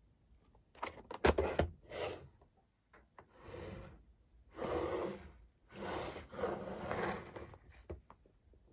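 Packaging being handled and opened: a few short bursts of rustling and scraping, then three longer rustling stretches, with scattered clicks.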